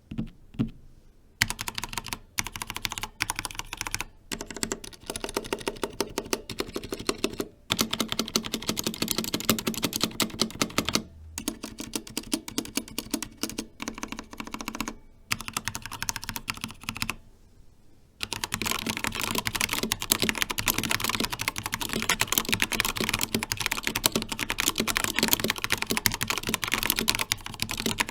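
Typing on a Corsair K70 Pro Mini Wireless mechanical keyboard with Cherry MX Red linear switches: bursts of rapid keystroke clicks broken by short pauses, then continuous fast typing for the last third.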